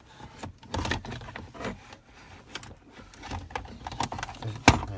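Hands handling car interior trim and a small bulb: irregular clicks, taps and rubbing, with one sharp click near the end.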